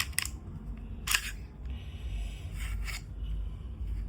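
Umarex Beretta M9A3 CO2 pistol's slide being worked off the frame after unlocking: a few sharp metallic clicks, the loudest about a second in, then a short sliding rasp and two more clicks near the end.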